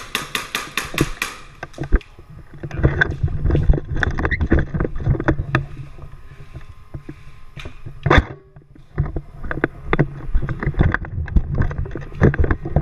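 Airsoft gun firing a rapid burst of about eight sharp shots in the first second and a half, followed by scattered sharp cracks and clicks of gunfire and handling over rumbling movement and wind noise on the microphone.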